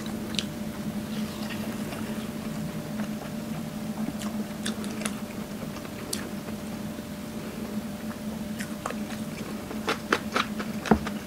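Close-up eating sounds: chewing, with light clicks of wooden chopsticks against dishes, more of them near the end, over a steady low hum.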